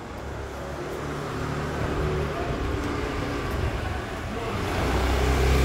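Small motor scooter engine running, growing steadily louder as it rides up through an arched passage.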